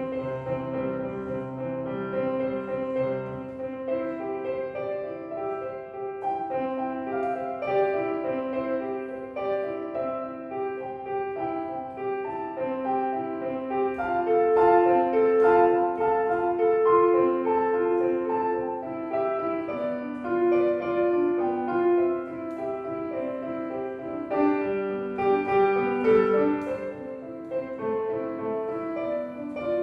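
Street piano being played: a melody over held chords, growing louder about halfway through.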